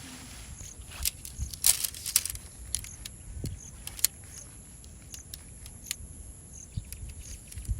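Scattered light clicks and knocks of objects being handled, with a quick run of bright clinks about two seconds in, over a steady high insect drone.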